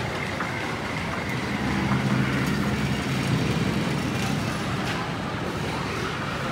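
Steady outdoor traffic noise, with a motor vehicle's engine hum swelling as it passes about a second and a half in and fading again a few seconds later.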